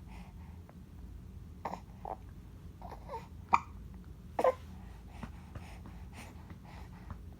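A four-month-old baby making short sounds: a string of brief hiccups and little coos, the two loudest a little past the middle.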